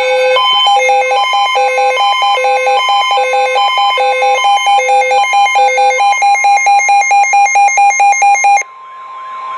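NOAA Weather Radio warning alarm tone, a steady high tone that announces a warning, here a flash flood warning. Over it a weather radio receiver's own electronic alert beeps in a repeating pattern, which turns to quicker beeps, about four a second, after about six seconds. The beeping stops near the end, leaving the steady tone alone.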